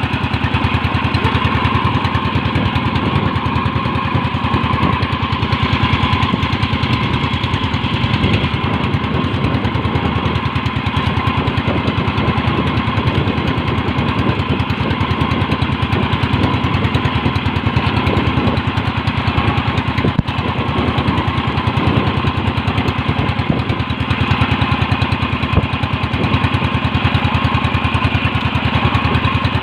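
Small fishing boat's gasoline engine running steadily with a fast, even beat.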